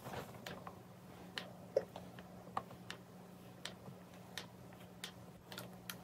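Faint, irregular light clicks and ticks from a hair micro crimper being clamped on and released along a section of hair, over a faint steady low hum.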